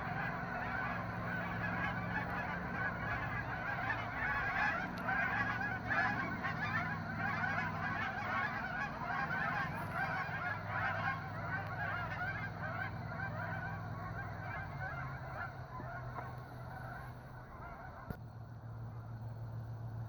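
Hundreds of geese honking together, many overlapping calls in a dense clamour that thins and grows quieter over the last few seconds.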